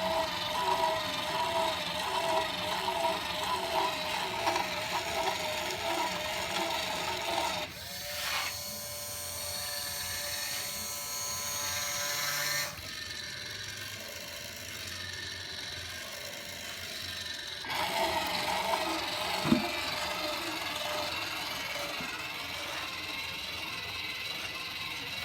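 Small motor of a homemade PCB drilling machine running with a wavering whine. The sound changes character twice: a brighter, higher whine about 8 seconds in, quieter from about 13 seconds, back to the first whine near 18 seconds. One sharp click comes shortly after.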